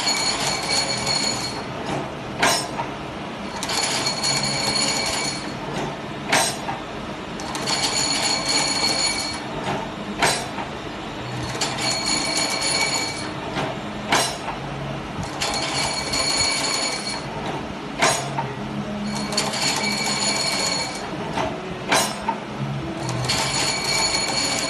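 Automatic heat-cutting machine for fabric strap working through its cycle. Each cycle is a whine of about a second and a half with a steady pitch, then a single sharp clack. It repeats regularly about every four seconds, with six clacks in all.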